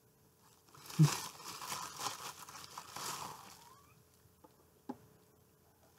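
Bubble wrap crinkling and rustling as it is pulled open by hand, for about three seconds, starting with a short vocal grunt. Two small clicks near the end.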